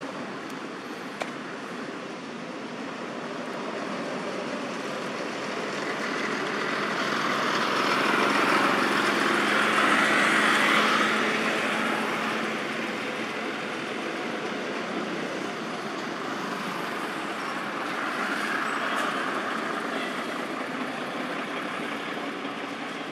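Road traffic running in the background, with one vehicle passing that swells to a peak about ten seconds in and then fades, and a smaller swell later on.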